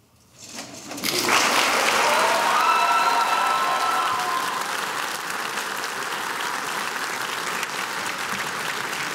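Theatre audience applauding, the clapping breaking out about a second in after a brief hush and holding steady. A few voices cheer over it for a couple of seconds near the start.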